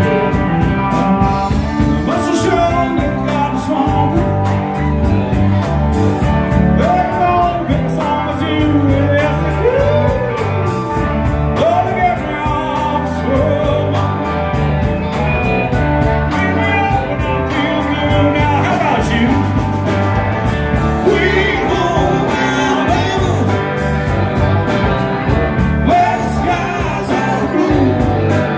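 Live country-rock band playing: electric guitars, bass and drum kit with a singer, at a steady beat.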